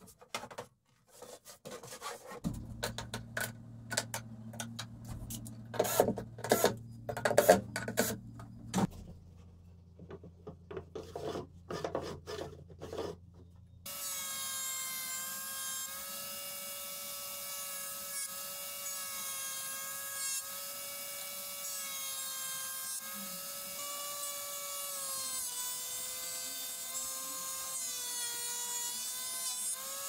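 Sharp, irregular knocks and taps of work on wood for the first half. Then a Scheppach jointer-planer starts up and runs with a steady whine, its pitch dipping briefly each time a board is fed across the cutter.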